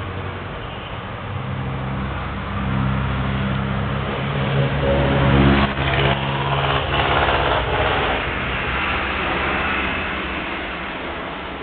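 A motor engine running, growing louder toward the middle and then fading away, like a vehicle passing by.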